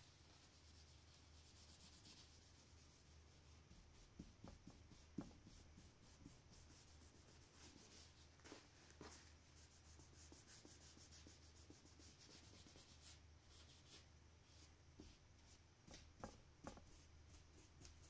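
Faint rubbing of a cloth rag on the painting's surface as it wipes and lifts wet acrylic paint, with a few soft taps, over a steady low hum.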